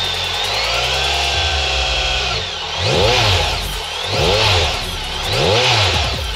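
BMW K1600 GTL's inline-six engine revved through an Akrapovic exhaust while standing still. One longer rev rises, holds and falls, then three quick throttle blips follow about a second and a quarter apart.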